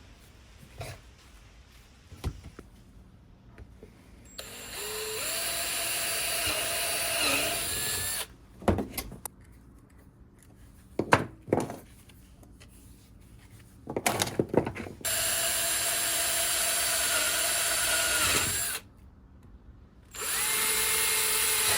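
A handheld electric power tool runs in three bursts, its motor pitch sagging as it bites into the work, with a few sharp knocks and clicks in between.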